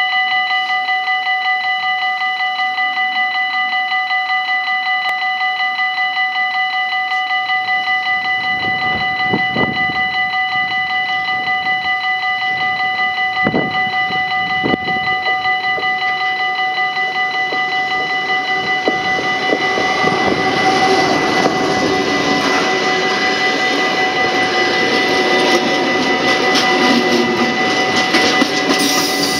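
Level-crossing warning bell ringing rapidly and steadily while a diesel-hauled freight train approaches, its rumble growing from about a quarter of the way in. It passes loudly from about two thirds in, then container flat wagons roll by with rail and wheel clatter near the end. The train is led by a Vossloh G1206 diesel-hydraulic locomotive.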